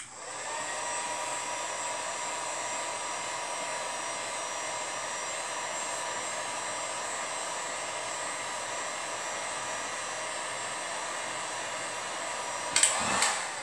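Handheld heat gun blowing steadily, with a faint steady whine over the rush of air, as it heats FORJ tape wrapped on a fishing rod to soften and fuse the layers. A brief louder burst of noise near the end as it stops.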